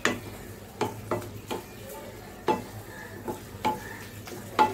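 A spatula stirring and mashing a thick leafy mash in a metal kadai, scraping and knocking against the pan in an irregular series of short clacks, the loudest near the end.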